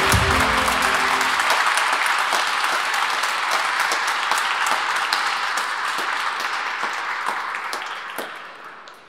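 A crowd of guests applauding, dense clapping that fades away near the end. Music plays under it at first and stops about a second and a half in.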